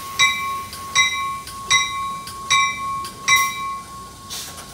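NJ Transit commuter train's door-closing warning: a steady high beep with a bell-like ding repeating about every three-quarters of a second, stopping about three and a half seconds in. A short hiss follows near the end.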